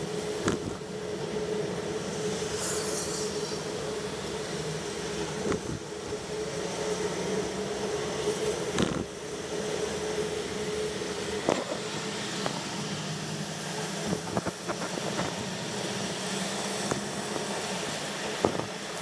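Car cabin noise while driving on a wet road in the rain: steady tyre and engine noise with a steady hum. Short, irregular knocks come now and then, and there is a brief hiss about three seconds in.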